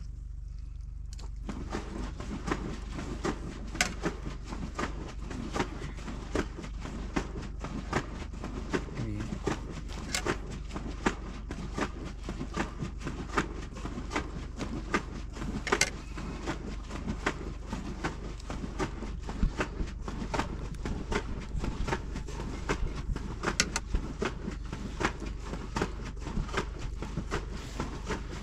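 Small clicks, taps and scrapes of metal skewers and a knife against a metal tray as sheep liver and offal are cut and threaded onto skewers, over a steady low background rumble.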